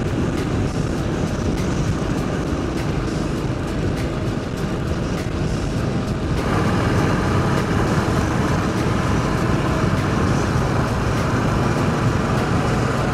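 A Royal Enfield Bullet's single-cylinder engine running steadily as the motorcycle rides along the road, with continuous road and wind noise. The sound changes abruptly about six and a half seconds in.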